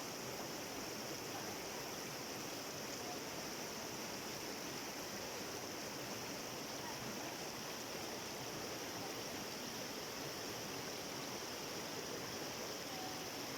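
Waterfall water rushing in a steady, even stream.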